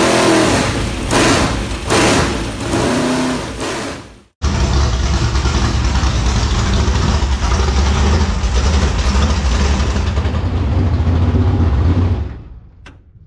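Intro music with a steady beat for about four seconds, then a dirt track race car's freshly rebuilt engine running loud and steady in the garage. It cuts off about twelve seconds in as the engine is switched off at the dash.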